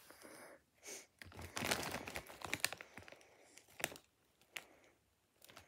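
Plastic-foil Takis chip bag crinkling as it is handled and held up to the face, in irregular bursts of crackling with a few sharp single crackles in the second half.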